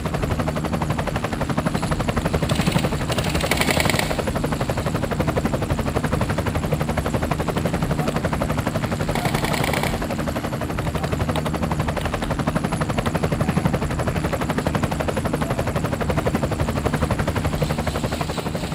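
Helicopter running steadily with a rapid, even rotor chop, with a couple of brief hissy bursts on top.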